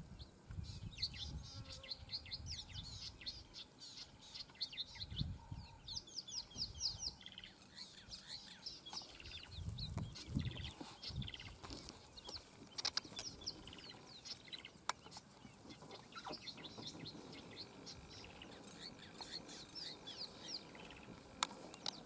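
A flock of helmeted guineafowl calling: runs of rapid, high chirping notes, strongest in the first seven seconds and again later, with a few low rumbles and sharp clicks.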